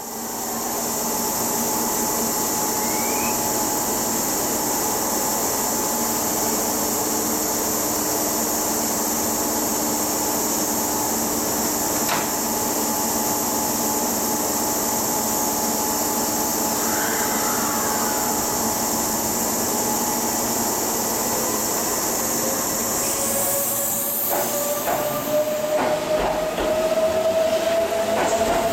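Kintetsu 23000 series Ise-Shima Liner electric express train standing at a platform, with a steady hum and hiss from its onboard equipment. About 21 seconds in, its motors start a whine that rises in pitch as it pulls away, a short hiss follows, and near the end the wheels click over rail joints.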